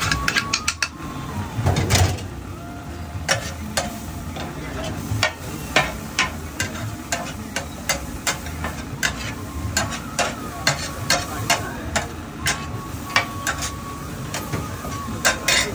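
Metal spatula clanking and scraping on a large flat tawa griddle as chopped tomatoes are chopped and stirred for pav bhaji. Sharp, irregular clinks come about one or two a second over a low steady rumble.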